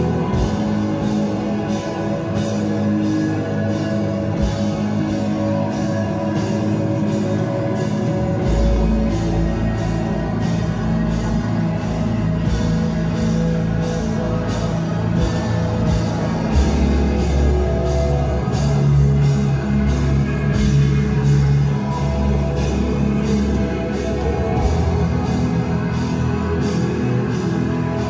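Live rock band playing loud, distorted music: two electric guitars over a drum kit keeping a steady beat. A deep low end swells in about 8 seconds in and grows heavier from about 16 seconds, as the song builds.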